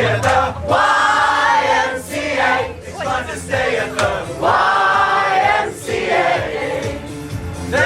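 A pop choir of mixed men's and women's voices singing together without words the recogniser could catch, holding two long chords.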